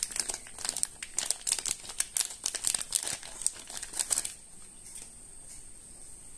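Thin clear plastic bag crinkling and crackling as it is pulled open by hand. The crinkling stops about four seconds in.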